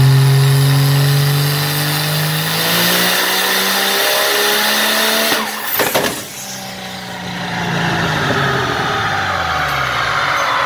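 A turbo diesel pickup engine runs flat out with its pitch climbing. About five seconds in, the turbocharger blows apart in a short cluster of loud bangs lasting under a second. Afterwards the engine's note falls steadily as it winds down.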